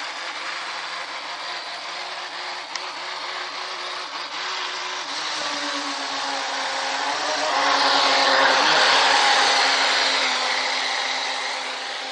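Radio-controlled speedboat's motor whining across the water, its pitch wavering with the throttle. It grows louder from a little past halfway as the boat runs in close.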